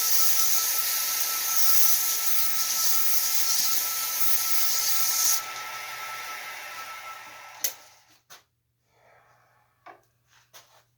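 A wood spindle spinning on a Craftsman King Seeley lathe, the lathe running with a steady whine while something rubs against the turning wood with a loud hiss. About halfway through the rubbing stops and the lathe runs down. A sharp click comes near the end, followed by a few faint knocks as the piece is handled.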